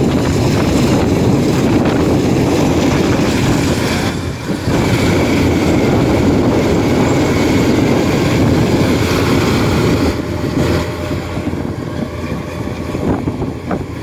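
Kubota DC-93 combine harvester running while it cuts and threshes rice, a steady diesel engine noise with wind buffeting the microphone.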